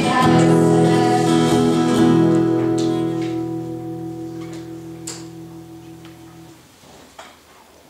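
A single strummed guitar chord rings out and slowly dies away, then is muted abruptly about six and a half seconds in. A couple of faint clicks follow.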